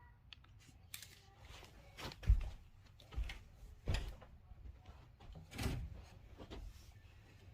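Knocks and clatter of flat-screen TV parts being handled during disassembly: scattered clicks with four heavier thumps, the loudest a couple of seconds in.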